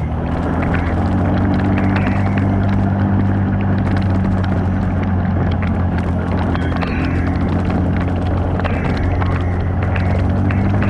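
Off-road 4x4 vehicle's engine running at a steady, low speed with an even, deep drone, with scattered light knocks and rattles over it.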